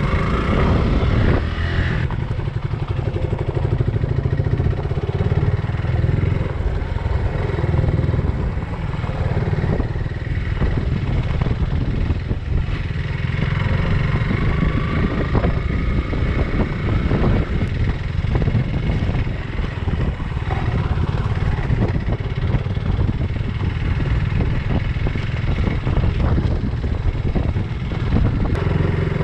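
Suzuki Gixxer 150 motorcycle's single-cylinder engine running steadily while riding, with wind noise rushing over the microphone.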